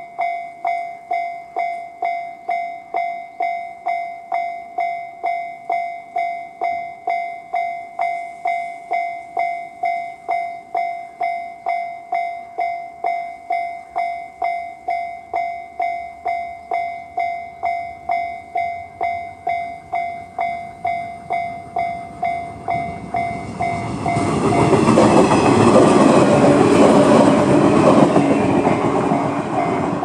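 Japanese level-crossing alarm (JR standard electronic tone) ringing in a steady, even rhythm. About 23 seconds in, a Shinano Railway 115-series electric train swells up and rushes through the crossing, loudest for about five seconds, then fades as the alarm keeps ringing.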